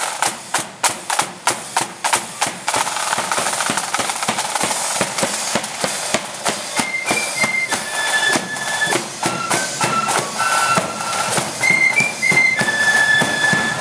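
Marching flute band: drums beat a steady march rhythm, and the flutes come in with a tune about seven seconds in, played over the drums.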